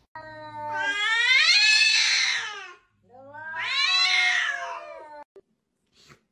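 Domestic cat yowling: two long, drawn-out calls, each rising and then falling in pitch, separated by a short gap.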